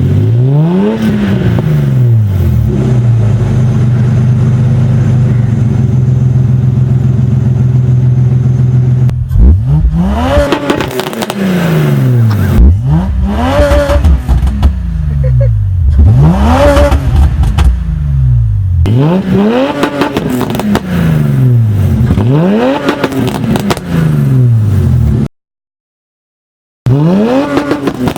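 A modified 2008 Nissan Patrol tuned to 520 bhp, its loud exhaust first idling steadily and then blipped over and over. Each rev climbs and falls back, about one every second and a half, and the sound cuts out completely for about a second and a half near the end.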